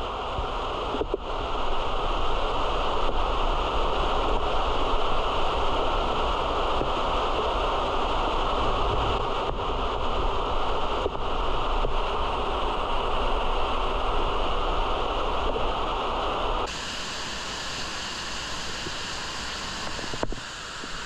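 Steady rushing of a large underground waterfall pouring into a deep cave shaft, with falling spray close by. About 17 seconds in the sound changes abruptly to a quieter, hissier wash of water.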